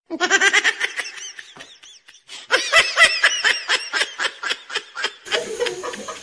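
Laughter: a quick, even run of high-pitched 'ha' pulses, about seven a second, breaking off briefly about two seconds in and then going on; near the end it gives way to softer laughter over room sound.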